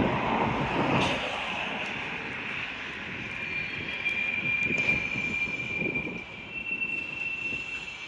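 Freight train rolling past: a steady rushing rumble, loudest at the start and slowly fading, with a high steady squeal that sets in about three and a half seconds in and steps up in pitch near the end.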